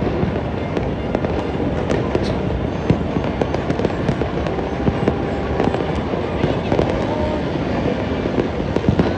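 Many fireworks and firecrackers going off at once across a city, a dense, continuous crackle of overlapping pops and bangs with no break.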